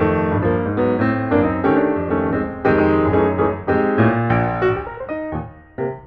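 Piano music: a run of quickly struck notes over lower chords, easing briefly near the end.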